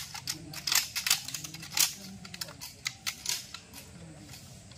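Irregular metallic clicks and clacks from several rifles being handled in drill, their mechanisms worked by a line of trainees at once. A few clacks stand out, about a second in, near two seconds, and past three seconds.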